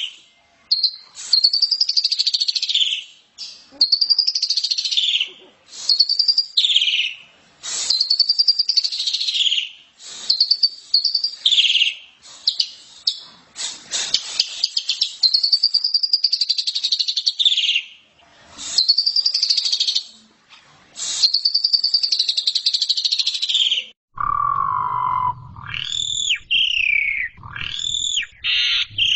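Asian pied starling (jalak suren) singing loudly: repeated arching phrases of whistles and chatter, each a second or two long with short breaks between. About 24 seconds in the song changes to a lower note and then quick rising-and-falling whistles, with a low hum underneath.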